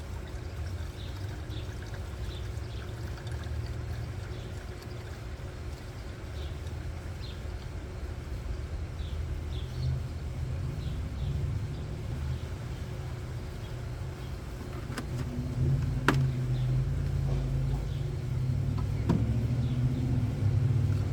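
A car's engine and road rumble, low and steady, building a little near the end, with a few sharp clicks in the last third.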